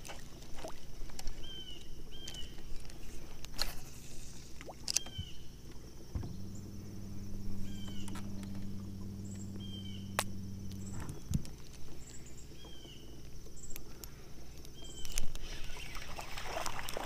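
Electric trolling motor (Minn Kota) on a jon boat running for about five seconds in the middle, a steady low hum. Scattered sharp clicks and knocks, and repeated short high chirps.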